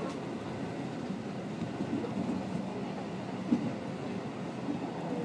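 Commuter train running, heard from inside the carriage: a steady rumble with a faint hum, and a single knock about three and a half seconds in.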